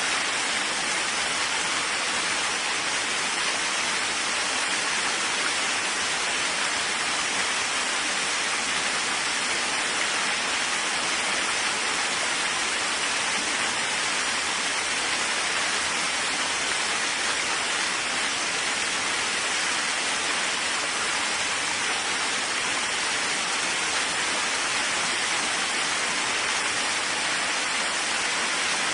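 Steady rain falling: an even, unbroken hiss with no thunder or separate drops standing out.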